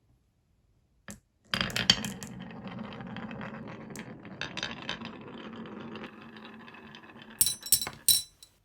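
Marbles rolling down a wooden HABA marble run track: a single click, then a steady rolling rumble with scattered clicks for about five seconds, ending in a few sharp clacks near the end.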